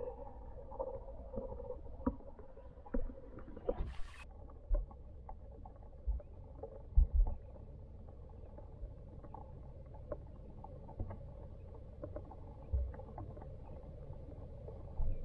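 Muffled underwater sound in a pond, heard through a submerged camera: a low steady rumble with irregular soft knocks and clicks, a brief hiss about four seconds in, and the loudest thumps about seven seconds in.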